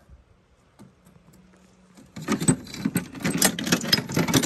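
Small metal scrap pieces clinking and rattling as a hand rummages through a plastic bucket of mixed scrap, starting about two seconds in after a quiet moment.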